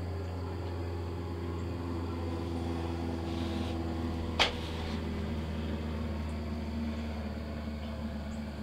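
A steady low mechanical hum, with a single sharp click about four and a half seconds in.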